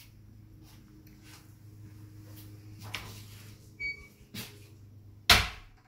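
A toilet-stall door being handled in a small bathroom: a few light knocks and clicks and a short squeak over a steady low hum, then one loud bang a little after five seconds in.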